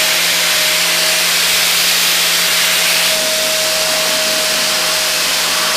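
Handheld angle grinder running with its disc held against rusted metal: a steady motor whine under a loud grinding hiss, dipping slightly about three seconds in.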